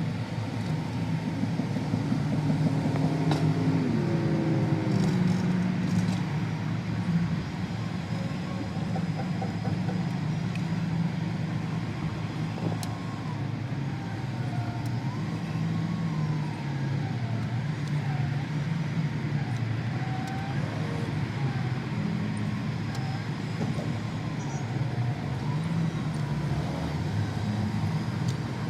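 A steady low mechanical hum, like an engine running, whose pitch wavers and shifts, with a few faint clicks.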